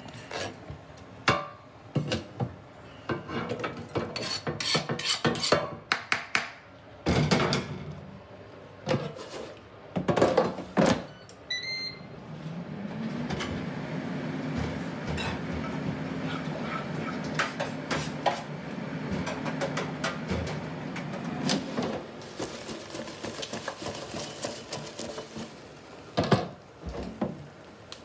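Air fryer baskets being handled and slid into a Ninja dual-basket air fryer, with knocks and clatter. About twelve seconds in, the control panel gives a short run of beeps, and the fryer's fan then runs with a steady hum for about ten seconds. More knocks come near the end as a basket is handled again.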